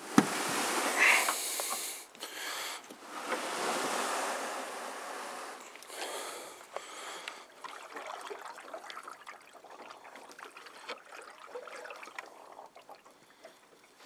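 Water swishing and splashing as a canoe is pushed along a shallow creek with a paddle, with a sharp knock just after the start. The rushing is loudest in the first couple of seconds, swells again a few seconds in, then settles into quieter lapping with small drips and clicks.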